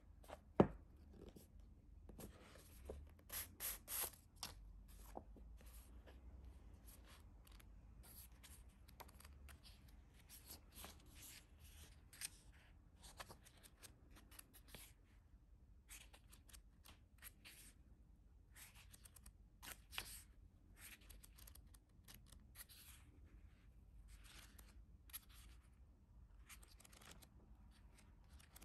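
Faint, irregular rustling and crinkling of paper and packaging being handled, with a sharp click about half a second in and louder crinkles around the fourth second.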